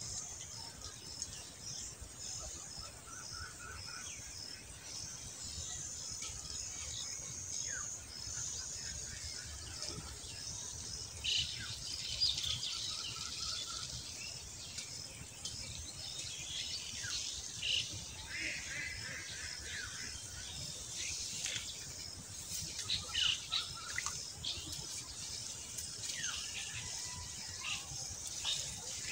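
Birds chirping and calling: many short high chirps and trills, busier in the second half.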